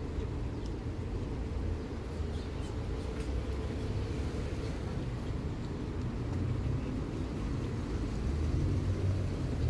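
Street traffic: a steady low rumble of passing cars, swelling a little near the end.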